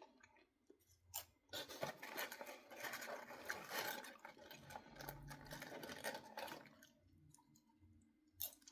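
Crackling and crunching from popcorn being eaten and handled: a dense stretch of crinkly noise for about five seconds, with a few sharp clicks before and after.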